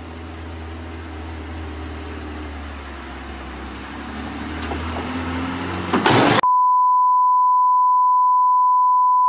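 A truck's engine runs with a steady low hum, then about six seconds in a loud burst of static hiss cuts to a steady 1 kHz test-tone beep, the bars-and-tone reference signal.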